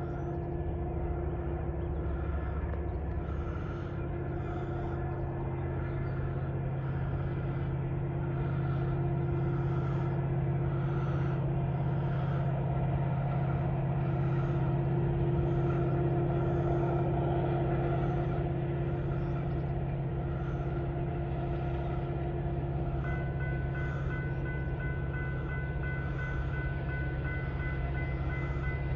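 Union Pacific freight train rolling past: a steady rumble that swells in the middle, with a regular clicking about once a second. Two steady high tones join about three quarters of the way through.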